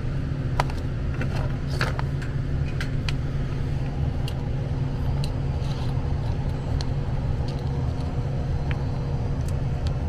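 Lennox furnace's PSC blower motor running steadily, a low hum of moving air with a faint steady tone, as it pulls air through an undersized 14x25x1 filter. Small clicks and rattles of manometer tubing and a probe being handled at the filter slot come now and then, most in the first three seconds.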